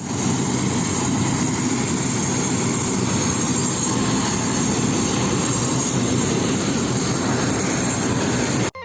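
Aircraft engines running loud and steady, cutting off suddenly near the end.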